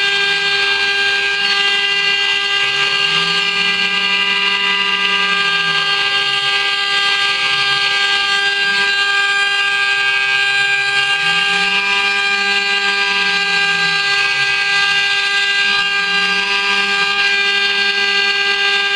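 CNC router engraving copper: the spindle runs with a steady high whine and a row of steady overtones, while a lower motor hum rises and falls in pitch, most clearly twice, about 3 to 6 seconds in and again about 11 to 14 seconds in.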